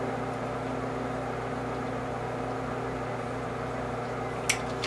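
Steady low machine hum made of a few level pitches, with a sharp click near the end.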